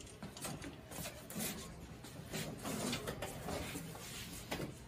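Footsteps and the shuffle and knock of classroom chair-desks as two people walk in and sit down: a string of faint knocks and scrapes.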